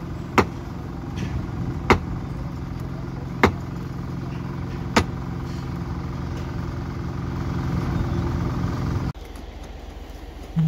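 A machine engine running steadily, with four sharp strikes about one and a half seconds apart over the first five seconds. The engine sound cuts off suddenly about nine seconds in, leaving a quieter steady background.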